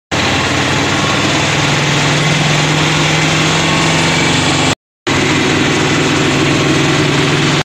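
Auto-rickshaw engine running steadily, heard from inside the open cab while riding, with road noise. A short gap of silence about two-thirds of the way through breaks the sound.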